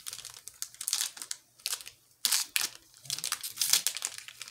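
Foil wrapper of a Panini Rookies & Stars trading card pack crinkling in short, irregular bursts as it is torn open by hand, with a brief lull about halfway through.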